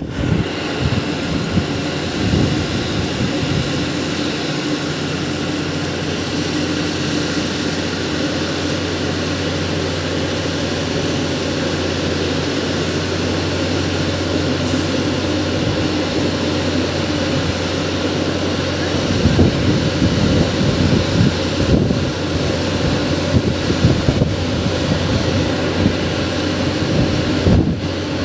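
Diesel engine of a yellow rail-mounted track maintenance machine running steadily with an even low hum. Wind buffets the microphone now and then, most in the last third.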